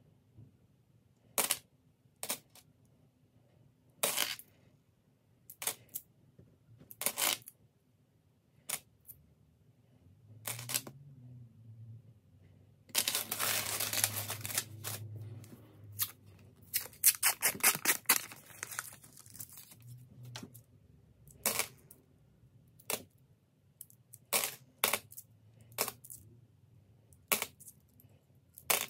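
Australian $1 coins clinking as they are handled and sorted, with single sharp clinks every second or two. In the middle comes a longer rattle and a quick run of clinks as a handful of coins tumbles together.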